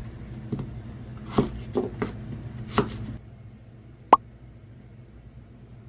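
Knife chopping a slimy vegetable on a cutting board, five uneven chops in the first three seconds. About four seconds in there is a single sharp click, louder than the chops.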